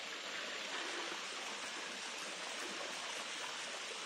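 Steady, even rush of running water: a mountain stream spilling down the rock face as a small waterfall.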